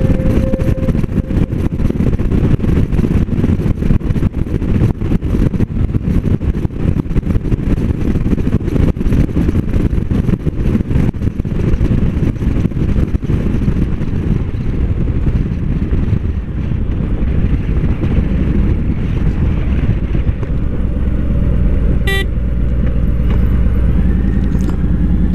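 Motorcycle running at road speed with heavy wind buffeting on the microphone over the engine. The buffeting eases in the second half, leaving a steadier low engine drone, with one brief click near the end.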